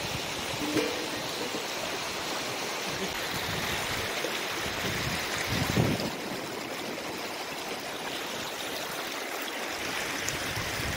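River water flowing steadily, with one brief louder swell a little past halfway through.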